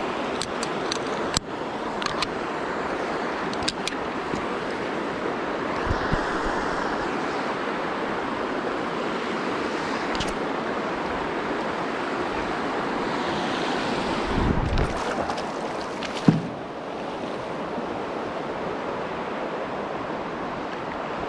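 River water rushing steadily over a shallow, rippled stretch. A few faint clicks and a single sharp knock about three-quarters of the way through, which is the loudest sound.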